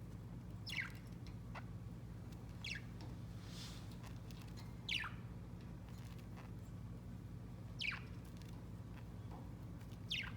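Budgerigar giving five short chirps, each a quick downward sweep in pitch, spaced a couple of seconds apart, over a steady low hum.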